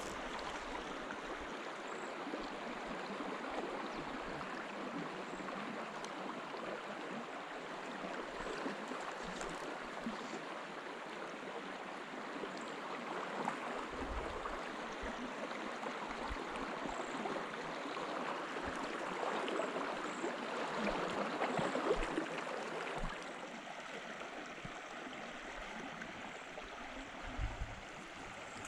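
Small river running over its bed: a steady babble of flowing water that swells a little past the middle and eases off near the end.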